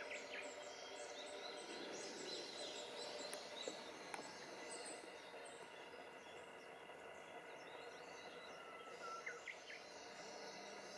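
Outdoor ambience: scattered bird chirps over a steady background of insects and faint environmental noise.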